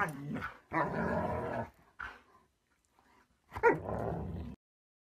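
Two dogs, a German shepherd and a husky, play-fighting with growls and barks in four short, rough bursts. The sound cuts off suddenly near the end.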